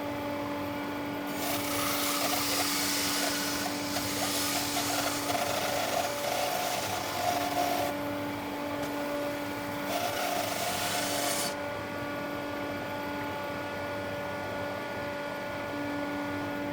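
Bandsaw running steadily with a hum. From about a second in, the blade cuts through a fruit-tree log with a loud rasping hiss. The cut eases off briefly past the middle, then stops about two-thirds of the way through, leaving the saw running free.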